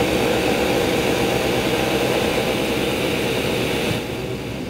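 Countertop blender running at speed, blending strawberries, water and peanut butter into a dog-treat popsicle mix. It runs steadily, then drops off about four seconds in as it is switched off.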